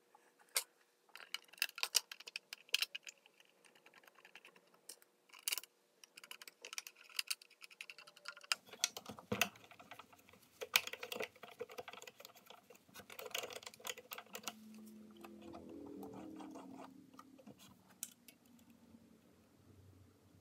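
Irregular light clicks and taps of plastic and metal parts as a sewing machine's hook compartment is handled and cleaned. About halfway through, a cloth starts rubbing and rustling inside the hook area.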